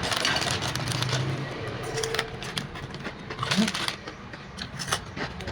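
Street ambience: indistinct background voices and road traffic, with scattered light clicks.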